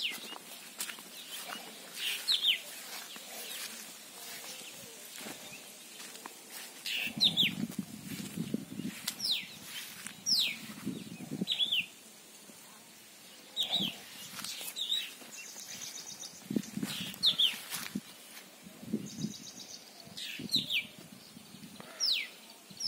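Bird calls: one bird repeats a sharp falling whistle, a note every second or two. Short, rapid high trills come in now and then.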